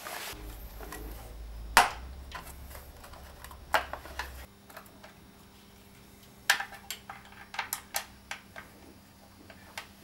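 Scattered clicks and light clinks of hand work on a Moto Guzzi Centauro's engine as the cam belt cover is fitted back on, a few in the first half and several close together in the second half.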